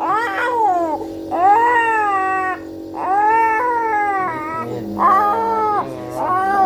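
Young child crying hard in a string of long, rising-and-falling wails while a nebuliser compressor hums steadily underneath.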